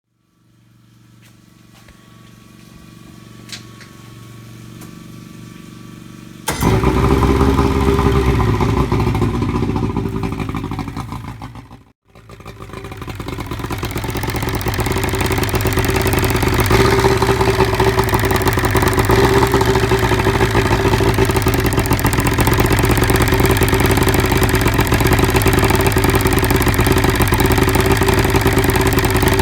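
1975 Evinrude 70 hp two-stroke outboard motor running loud and steady. A quieter steady hum comes first; the motor noise comes in suddenly about six seconds in and breaks off briefly about twelve seconds in.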